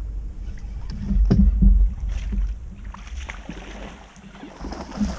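Small waves slapping against a bass boat's hull, with wind rumbling on the microphone and a few short knocks, loudest about a second in and again at the very end.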